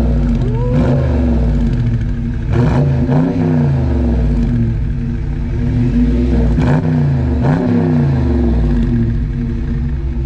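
Dodge Charger R/T's 5.7-litre Hemi V8 at the exhaust tip, idling steadily and revved in five short throttle blips. Each blip rises and falls quickly back to idle; the last four come in two pairs.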